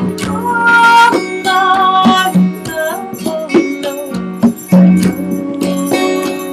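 Live band music: a flute melody over regular hand-drum beats and plucked guitar strings.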